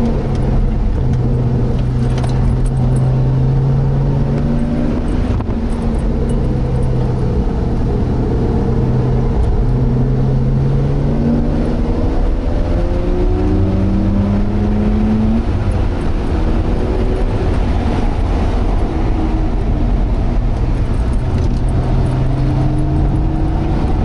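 Turbocharged Mazda RX-8's 13B two-rotor rotary engine, fitted with a GReddy turbo kit, heard from inside the cabin under hard track driving. The engine note climbs in pitch under acceleration and drops back several times, over a constant low rumble.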